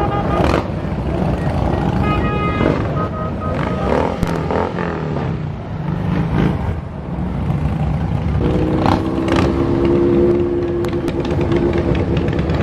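Motorcycle engines running and passing in a large rally ride. A pitched tone sounds briefly about two seconds in, and a steadier pitched tone is held from about eight seconds in.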